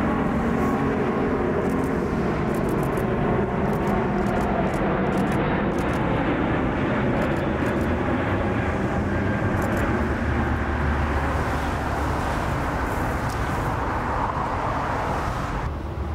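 Emirates Airbus A380 jet engines, a loud, steady rush of engine noise with a faint hum of steady tones at first.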